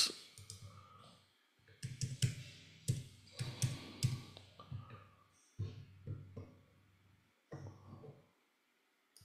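Typing on a computer keyboard: short irregular runs of key clicks separated by pauses.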